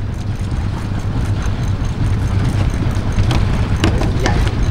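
An engine running steadily with a low, even hum, with a few light knocks about three to four seconds in.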